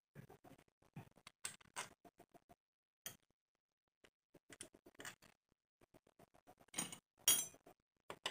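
Metal hand tools clinking and scraping in short, irregular bursts as a T-handle wrench is worked on the clutch-cover bolts of a Honda motorcycle engine, with two louder clatters about a second before the end.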